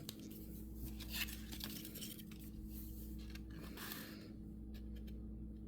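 Faint scattered clicks and light rustles of small objects being handled, over a low steady hum.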